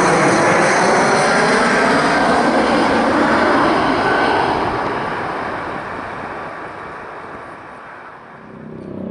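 Indonesia AirAsia Airbus A320-216 with CFM56 jet engines passing close on landing approach, a loud roar with sweeping, shifting tones that fades away over the last few seconds.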